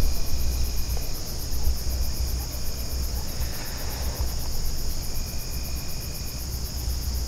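Chorus of late-summer insects: a steady high-pitched trill with a fast pulsing chirp above it, and a fainter tone that comes and goes three times. A low steady rumble runs underneath.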